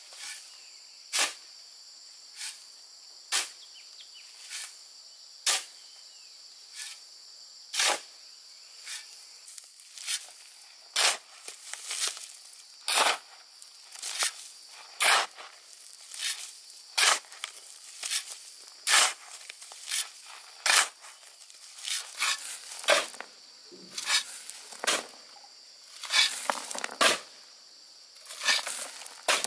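Sharp knocks, about one a second and coming faster and more ragged near the end, over a steady high drone of insects.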